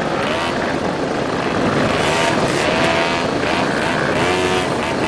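Moped engines running in a group ride, a steady mechanical noise with short rises and falls in engine pitch.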